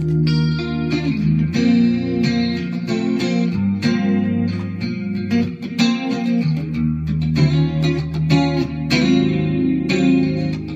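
Electric guitar played on a clean tone, chords struck one after another and left ringing over low sustained notes.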